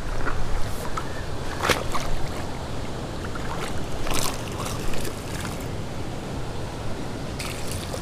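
River water sloshing around a wader, with a couple of sharp splashes about two and four seconds in from a hooked smallmouth bass thrashing at the surface.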